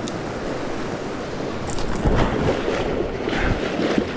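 Rushing of a fast, snowmelt-swollen mountain stream, with legs in waders splashing through it while wading across; heavier splashes come about two seconds in and again near the end.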